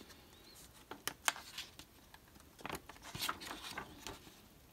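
Pages of a paper booklet being turned by hand: two sharp paper snaps a little after a second in, then a short run of page rustling about three seconds in.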